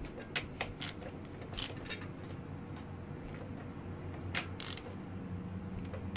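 A handful of light, irregular clicks and clinks of hand tools working the 10 mm axle pinch bolts on a dirt bike's fork leg, over a low steady hum.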